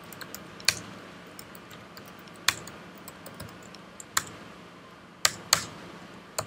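Computer keyboard keys being pressed one at a time: a handful of separate clicks with pauses between them, over a faint steady hiss.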